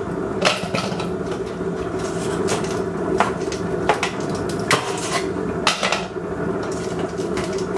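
Ice cubes clinking into a plastic smoothie cup, a sharp clink roughly every second as they go in one by one.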